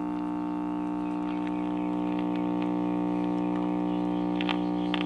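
Vintage tube radio-phonograph humming steadily through its speaker, a mains hum with many overtones. This is the sign of an open filter capacitor in its power supply. Two faint clicks come near the end.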